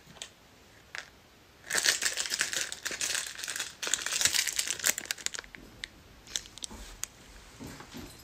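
A food wrapper being crinkled by hand: a few faint rustles, then loud, dense crinkling from about two seconds in for some three seconds, easing off into scattered fainter crackles.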